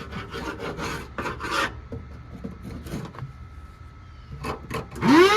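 Abrasive rubbed by hand in quick back-and-forth scraping strokes over the rusty sheet-metal trunk floor, stripping rust. The strokes ease off through the middle and pick up again, and a loud rising whoosh comes right at the end.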